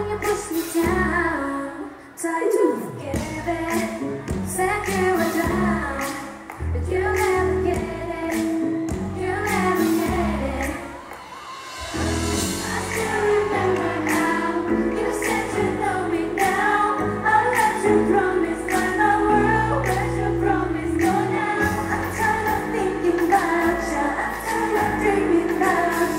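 Pop song performed live: female group vocals over a backing track with a steady dance beat. The bass and beat drop out briefly about two seconds in and again near the middle before coming back in.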